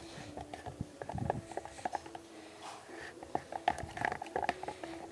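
A spoon stirring a thick homemade slime paste in a container, making irregular clicks and soft scrapes against its sides.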